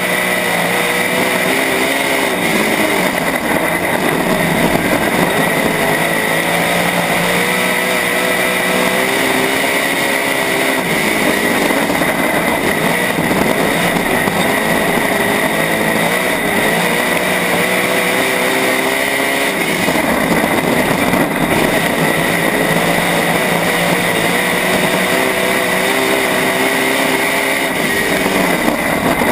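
Dirt-track USMTS Modified race car's V8 engine heard from inside the car at racing speed, its pitch rising and falling over and over as the driver throttles on and off around the oval. A steady high whine runs under it.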